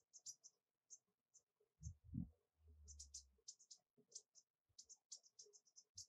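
American bushtit flock giving many short, very high-pitched contact call notes, scattered and busiest in the second half. A low thump about two seconds in, followed by a brief low hum.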